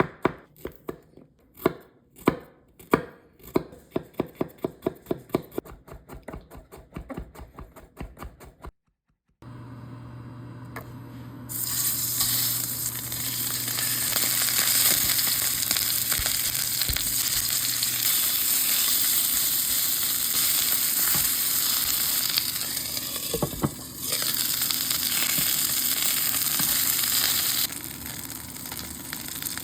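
A knife chopping quickly on a cutting board, several strikes a second, stopping about nine seconds in. After a short gap and a low hum, food begins sizzling loudly in a hot frying pan, a steady frying hiss that drops back near the end.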